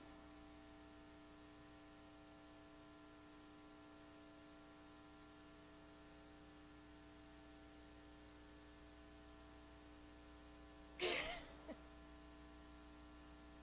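Near silence with a steady electrical hum. About eleven seconds in there is one brief, louder sound lasting well under a second.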